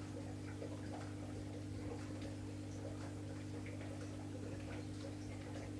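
Steady low electrical hum of running aquarium equipment, with a second steady tone above it and faint irregular ticks.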